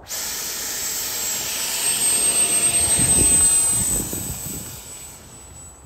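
Electric ducted-fan jet of a 3D-printed RC Yak-15 model at full power on its takeoff run across grass. A high whine over a rushing blast rises slightly in pitch just before two seconds in, peaks around the middle and fades as the plane rolls away.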